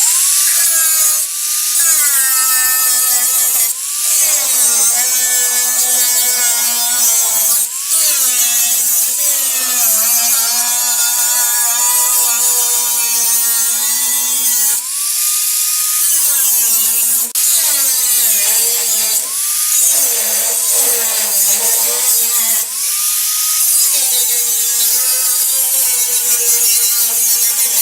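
Hand-held power cutting tool, most likely a cut-off wheel, slicing through the car's sheet-metal floor. Its motor whine drops in pitch each time the wheel bites into the metal and rises back as it eases off, repeating every few seconds with a few short breaks.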